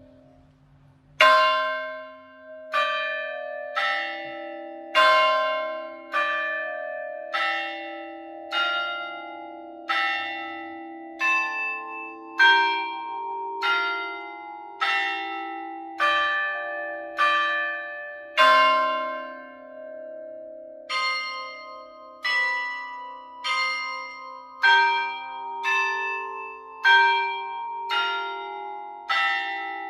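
Church tower bells playing a hymn tune, one bell struck at a time, about one note a second, each note ringing on under the next. Stronger strikes mark the starts of phrases, and the first strike comes about a second in.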